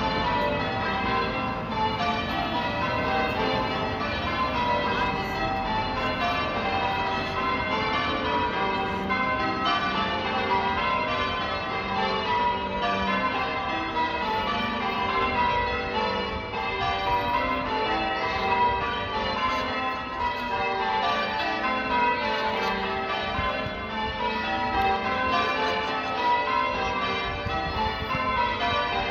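Church bells change ringing: a ring of tower bells struck one after another in an unbroken sequence, the order of strikes shifting from row to row.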